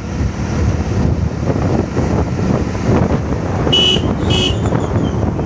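Steady engine and road noise from a vehicle moving along a road. A horn beeps twice, short and high, about four seconds in.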